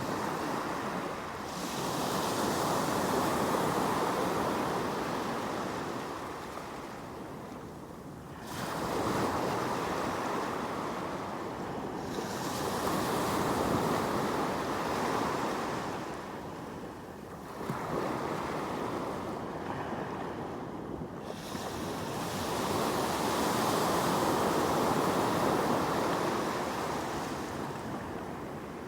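Sea waves breaking and washing up the shore, coming in slow surges that swell and fade over several seconds each.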